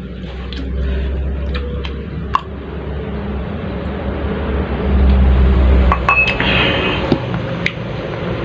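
Close-up eating sounds: chewing with scattered sharp clicks and clinks, over a low rumble that swells twice.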